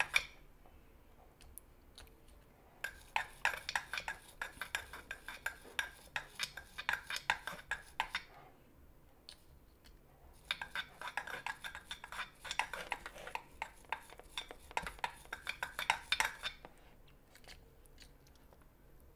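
Soldering iron tip scrubbed rapidly back and forth against a metal scouring pad, a fast scratchy metallic rasping in two long bouts with a pause between. This is cleaning a blackened, oxidised tip that will not take solder.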